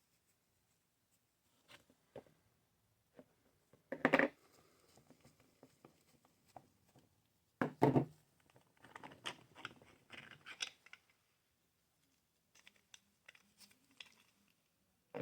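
Hand disassembly of a Black & Decker 7504 jigsaw's back housing: scattered small clicks, two louder knocks of parts set down on the bench about 4 and 8 seconds in, and a stretch of scraping and rattling between them and near the end.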